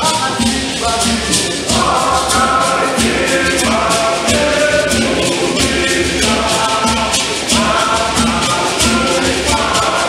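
Men's choir singing a hymn in harmony, accompanied by hosho gourd rattles shaken in a steady rhythm and a tall standing drum beaten by hand.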